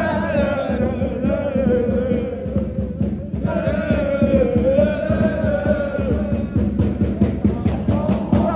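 A small group of football supporters chanting a terrace song close to the microphone, in two long drawn-out sung phrases with a short break about three seconds in.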